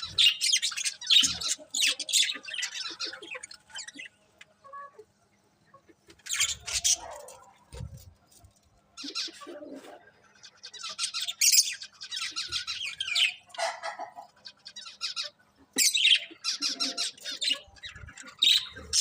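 Budgerigars chirping and chattering in rapid high bursts, with a short lull about four to six seconds in.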